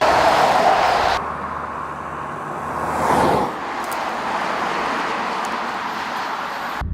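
Road traffic: motor vehicles driving past, with a louder swell about three seconds in as one passes close, broken by abrupt edit cuts about a second in and just before the end.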